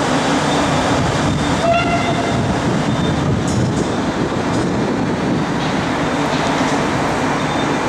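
A pair of DB class 642 Desiro diesel multiple units running steadily as they shunt at low speed, with a short high-pitched note about two seconds in.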